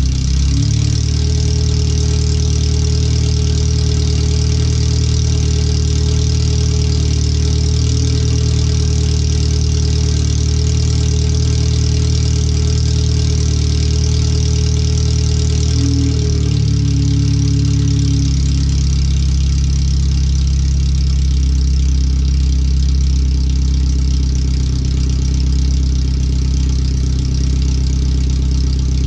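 Car engine idling with only a header fitted and no exhaust beyond it, so it runs loud and open. About two-thirds of the way through, the idle speed drops a little and settles there.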